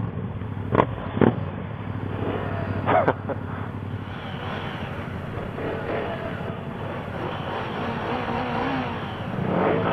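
Motorcycle engines running steadily, with a few short sharp knocks or clicks in the first three seconds.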